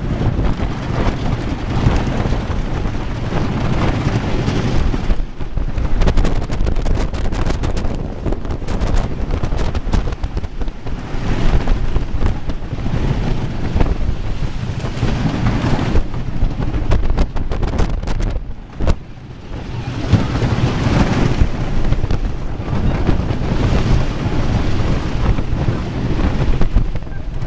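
Intamin wooden roller coaster train running over its wooden track: a continuous rumble and clatter with strong wind buffeting the on-board microphone. The noise briefly drops away about two-thirds of the way through.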